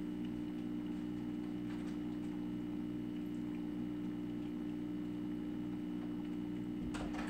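Steady low electrical hum made of a few fixed tones, over faint room hiss.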